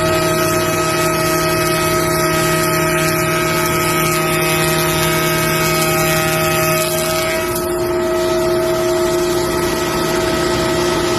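Wood shaper running with a steady, loud machine whine. The sound shifts slightly and dips a little about seven and a half seconds in.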